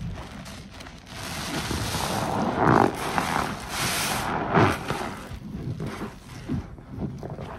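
Sponges squeezed and wrung by gloved hands in a sink full of thick dish-soap foam: wet squelching of suds, with the loudest squishes a little under three and about four and a half seconds in.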